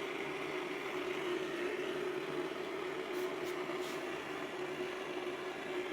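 Gas blowtorch flame burning steadily with a hiss and a constant low hum while heating a lead pipe joint for tin soldering. A few faint ticks come about three to four seconds in.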